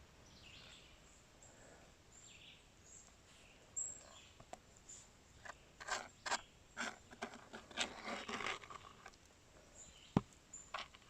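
Gravel and water shifting in a gold pan as it is worked by hand: faint swishing with scattered short clicks and rattles of stones from about four seconds in, and one sharp click near the end.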